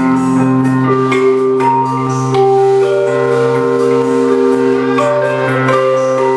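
Live band playing an instrumental passage: long held notes, some changing pitch every second or so, over a steady low drone, with light percussive strikes.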